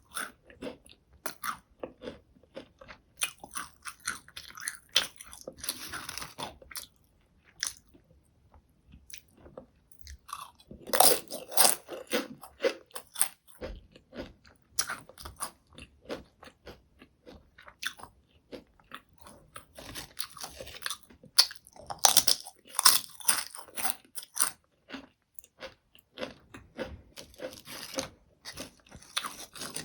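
Potato chips being bitten and chewed up close, a crisp crackling crunch that comes in several bouts with quieter pauses between them.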